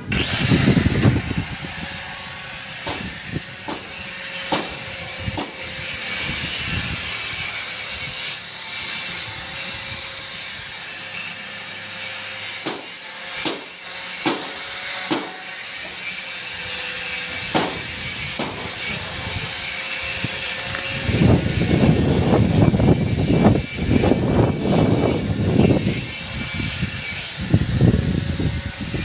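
Electric power tool worked against the truck cab's bodywork, as in sanding or grinding ahead of repainting. It starts up at the beginning, its high whine rising briefly and then holding steady, with heavier rasping bursts of contact with the surface in the last third.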